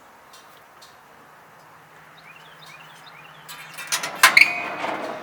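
A few short bird chirps, then loud metal clanks with a ringing tail starting about three and a half seconds in, the loudest two close together near the end.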